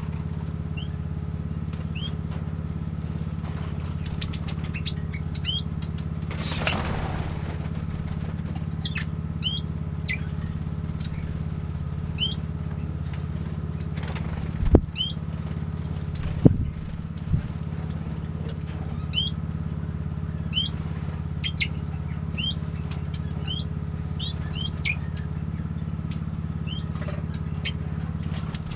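Small aviary birds (finches, waxbills and Bourke's parrots) giving short, high chirps and calls throughout, over a steady low hum. There is a brief rushing noise about seven seconds in, and a couple of sharp knocks a little past the middle.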